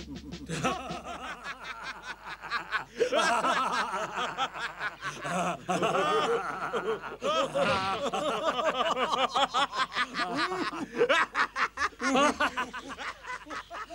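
Several men laughing helplessly in overlapping chuckles and cackles. This is the uncontrollable laughter brought on by eating 'laughing mushrooms'.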